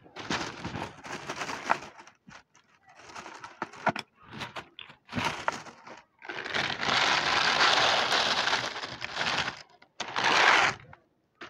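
Plastic bag of dry cat food rustling and crinkling in short bursts, then dry kibble poured into a clear plastic food tray, rattling for about three and a half seconds, with a second short pour near the end.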